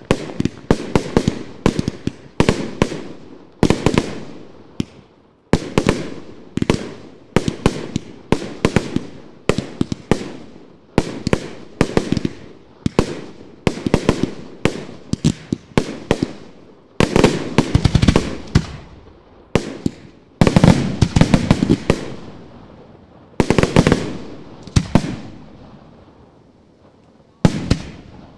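Aerial shells of a large Italian fireworks display bursting in rapid succession, sharp bangs coming in clusters every second or two, each with a fading echo. The bangs grow sparser near the end.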